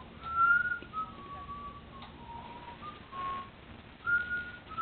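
A person whistling a slow tune: a string of clear held notes that step up and down in pitch.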